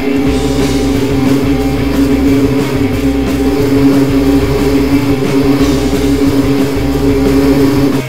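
Rock music with drums and guitar over a loud, steady droning buzz of a bee swarm sound effect.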